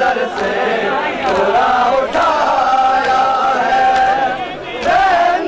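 A group of men chanting a Muharram lament (noha) together, holding long notes that step up and down in pitch.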